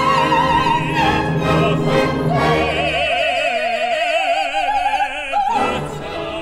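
Operatic singing over an orchestra: a voice with a wide vibrato holds a high note, then a lower note for about three seconds that lifts briefly and breaks off about five and a half seconds in, leaving the orchestra.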